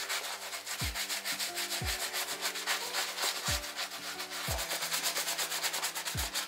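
Leather baseball glove being scrubbed clean, a rapid run of brisk rubbing strokes over the leather that goes on without a break.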